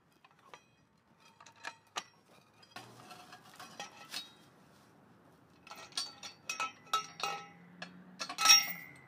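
Metal chain and steel post puller clinking and rattling as they are handled: scattered light clinks at first, busier in the second half, with one loud ringing clink near the end.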